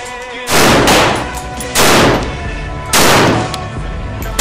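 Three rifle shots about a second apart, each sharp crack trailing off in a short echo.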